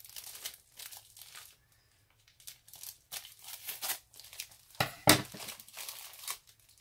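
Plastic packaging bag being torn open and crinkled by hand: irregular rustling and ripping, with a quieter pause about two seconds in and the loudest sharp rip about five seconds in.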